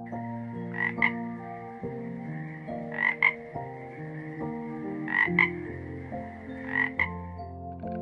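Frog calling: a double croak about every two seconds, four times, over a steady high trill that stops shortly before the end. Soft piano music plays underneath.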